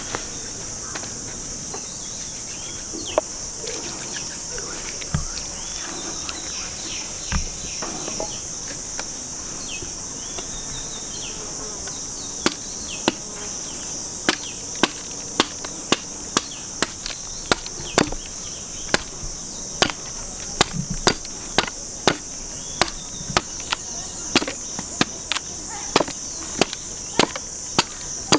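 Knife chopping the spiky rind off a raw jackfruit held upright on a wooden tree stump, each stroke a sharp knock. There are a few scattered strokes at first, then steady chopping at roughly two strokes a second from about halfway through. Insects buzz steadily and high-pitched behind it.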